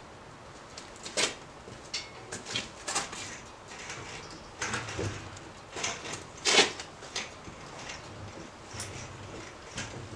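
Hydraulic engine hoist being pumped by hand to lift a heavy bandsaw, with irregular clunks and creaks from the pump handle and the loaded hoist, loudest about a second in and at about six and a half seconds.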